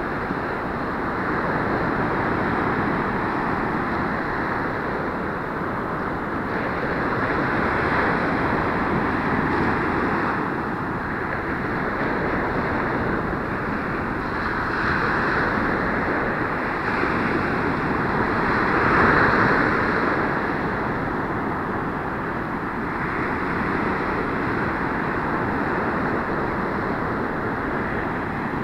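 Ocean surf breaking and washing up a sandy beach, a continuous wash that swells and eases as each set of waves comes in, loudest about two-thirds of the way through. Wind buffets the microphone underneath.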